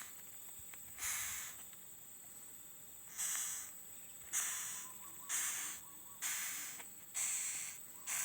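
An animal hidden in an oil palm trunk hissing over and over, in short bursts about a second apart.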